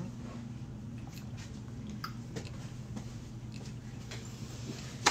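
A person drinking from a plastic water bottle: quiet swallowing and faint clicks of the bottle, over a steady low hum. A sharp click comes at the very end.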